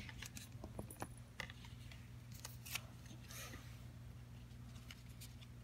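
Faint rustling and a few light taps of trading cards being handled and sorted by hand, over a low steady hum.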